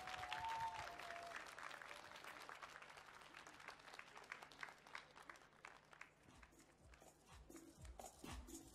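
Audience applauding, the clapping fading away over several seconds. Music comes in near the end.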